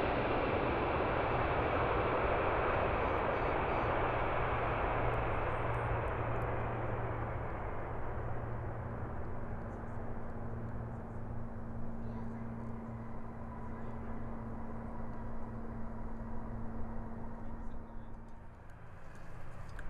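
Four-engine Boeing 747SP jet landing. A loud, even jet roar is strongest in the first few seconds and fades steadily as the aircraft touches down and rolls away, leaving a steady low hum with a drone over the second half.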